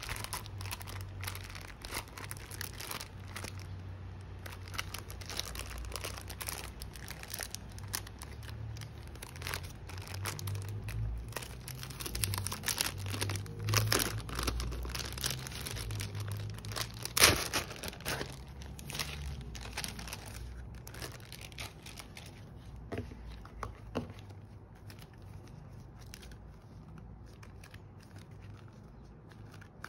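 Clear plastic packaging crinkling and crackling as it is handled and pulled open, and a plastic photocard binder slid out of it. There is one sharp loud crackle about two-thirds through, and the rustling thins out toward the end.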